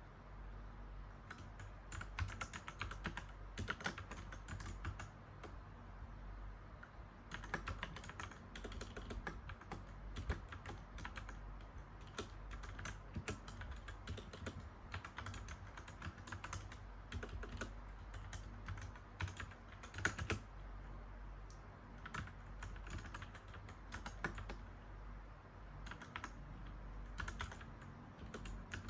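Mechanical keyboard typing: fast runs of key clicks in bursts, broken by short pauses.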